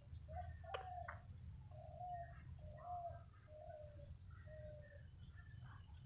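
Birds calling: one bird repeats a short, low, slightly falling note about six times, while others give faint high chirps. Under them runs a steady low rumble, and there is a single sharp click a little under a second in.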